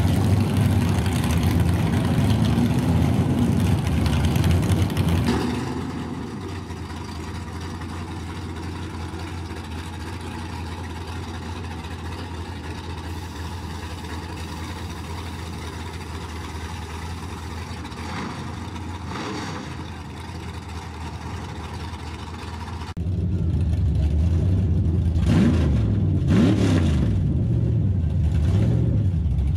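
Drag-racing pickup engines: a Chevrolet C10 pickup's V8 running hard as it pulls away down the strip, fading after about five seconds to a quieter steady engine hum. After a sudden cut about 23 seconds in, another pickup's engine idling loudly close by, revved twice in quick short blips.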